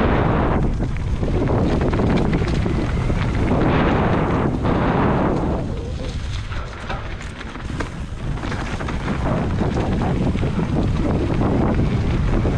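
Heavy wind buffeting on the microphone during a fast downhill ride, with a low rumble underneath. It eases for a couple of seconds about six seconds in, then picks up again.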